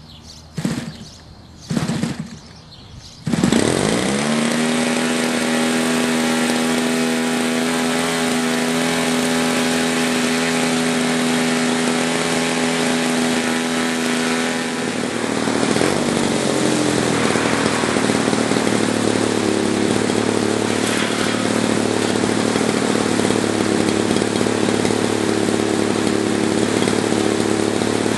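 Two-stroke gasoline model-airplane engine, fitted with a new RC-EXL electronic ignition, hand-propped: a couple of brief pops, then it catches about three seconds in and runs steadily. About fifteen seconds in its note changes and it runs a little louder. The engine starting and running evenly shows the new ignition working.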